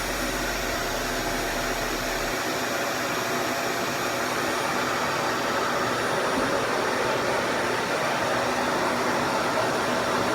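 RevAir reverse-air hair dryer running steadily, its suction drawing hair into the wand: a constant rushing drone like a vacuum cleaner.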